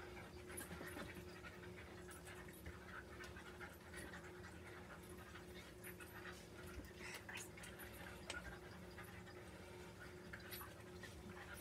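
A dog panting faintly, over a steady low hum.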